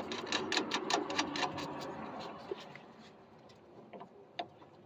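Hand ratchet wrench clicking quickly and evenly as a suspension nut is run on. The clicking fades out about two seconds in, with a couple of single clicks near the end.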